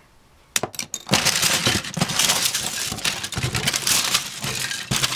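Loose plastic Lego bricks clattering as hands rummage through a box of them: a few separate clicks about half a second in, then continuous rattling clatter from about a second in.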